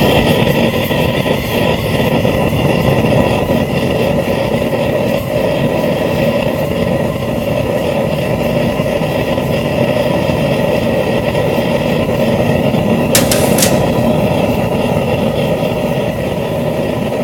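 Propane forge burner running at about 5 psi, a steady rush of burning gas. A brief sharp high-pitched noise comes about thirteen seconds in.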